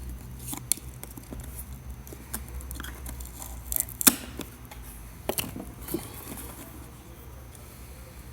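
Scattered sharp clicks and light taps of small tools and smartphone parts being handled, the loudest about four seconds in, over a low steady hum.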